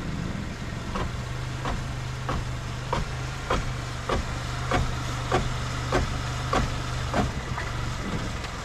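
Rhythmic metallic knocking, about one and a half knocks a second, from the raised, engine-driven front wheel of a Mercedes A150 (W169) turning in drive, over the engine idling. The wheel rim, bent by a hard pothole strike, hits the steering tie-rod end once each turn. The knocking stops near the end.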